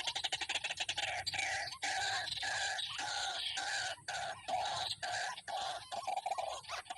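White-breasted waterhen (dahuk) calling: a fast run of pulsed notes, then a string of repeated croaking calls in quick succession with short breaks between them.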